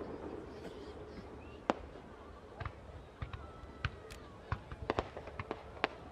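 Fireworks display: one sharp report about two seconds in, then sharp pops and cracks from bursting shells and low-level effects, coming more and more often toward the end.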